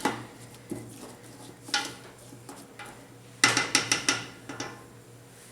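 A utensil knocking and clinking against a cooking pot as the vegetables in it are stirred. There are a few scattered knocks, then a quick run of several clinks about three and a half seconds in.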